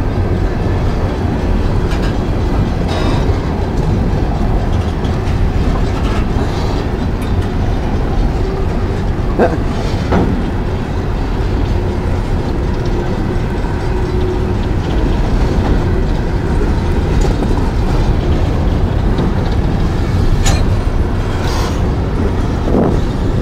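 A CSX coal train's hopper cars rolling past close by: a steady heavy rumble of steel wheels on rail, with a few sharp clanks about ten seconds in and again near the end.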